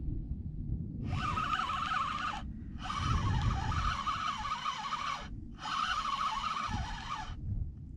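Spinning reel being cranked to wind in line, giving a whirring gear whine in three spells of one to two and a half seconds with short pauses between turns, over a low rumble of wind and water.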